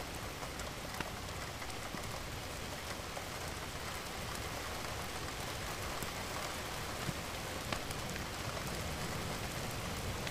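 Steady rainfall: an even hiss with a few sharp drop ticks now and then.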